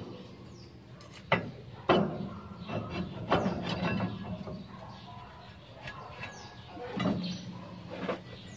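Steel leaf-spring leaves and U-bolts knocking and clinking as a spring leaf is handled and set onto a truck's leaf-spring pack: several sharp metal knocks, a few seconds apart, over a steady low hum.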